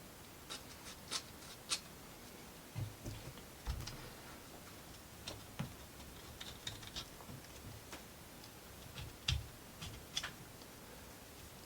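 Small plywood model-kit parts being handled and fitted together: irregular light wooden clicks and taps, with a few soft thumps.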